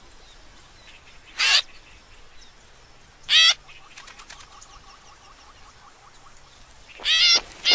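Short, high squealing calls from cartoon piglets in a nest: one about a second and a half in, another near the middle, and a louder run of several squeals near the end, over a faint outdoor background with small bird chirps.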